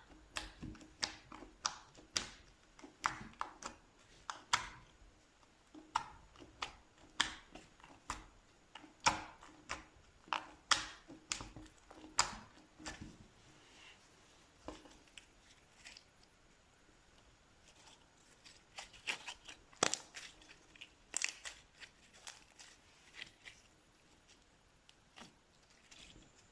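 Slime being pressed and squeezed by hand, giving sharp, irregular pops and crackles about once or twice a second, with a sparser stretch in the middle.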